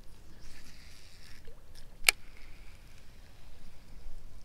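Baitcasting reel being cranked, giving a faint whir, with one sharp click about two seconds in.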